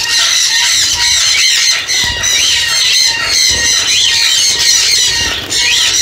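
A flock of budgerigars chattering: many quick, high chirps and warbles overlapping without a break.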